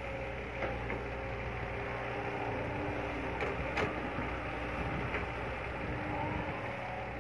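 Caterpillar hydraulic excavator's diesel engine running steadily as the machine swings and dumps a bucket of soil into a dump truck, with a few sharp knocks, the loudest near the middle.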